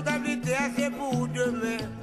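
Music with a singing voice over a short repeating bass line.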